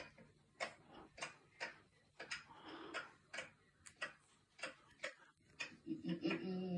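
Steady, regular ticking, about three sharp ticks a second, with a brief hum of a voice near the end.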